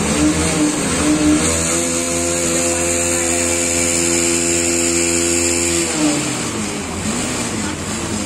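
Minibus engine pulling through floodwater. Its pitch rises in the first second, holds steady, then falls away about six seconds in, over a steady wash of water splashing from the wheels.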